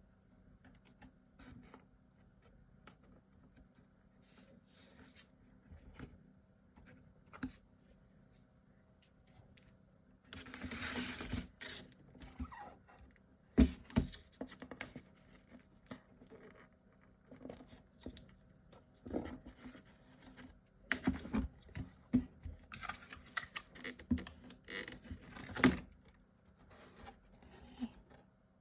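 Chipboard and paper pieces being handled: rustling and scraping with scattered small taps, a sharp knock about halfway through, and a busier stretch of scraping and tapping near the end, over a faint steady room hum.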